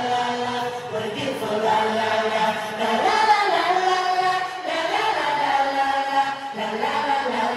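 Large concert crowd singing along in unison, many high voices holding long notes of the melody over the pop band's live music.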